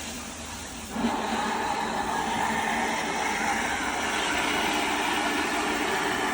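A steady rushing noise starts about a second in and holds evenly, with a faint hum in it.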